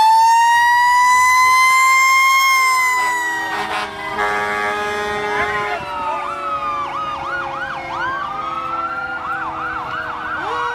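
Fire engine sirens. A slow wail rises and then falls over the first few seconds. After a break about four seconds in, a fast yelp sweeps up and down about two to three times a second.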